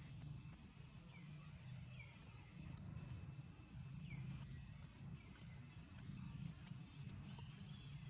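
Quiet outdoor ambience: a low rumble and a steady high-pitched hum, with a short falling chirp repeating every second or two and a few faint clicks.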